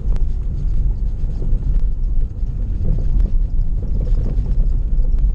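Lada Priora cabin road noise, a steady low rumble from driving over a bumpy road, with irregular light knocks from the rear suspension. The owner suspects a failing left rear shock absorber.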